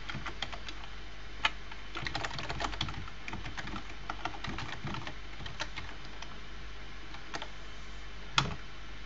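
Typing on a computer keyboard: irregular keystrokes in quick runs, with a couple of louder single clicks, one about a second and a half in and one near the end.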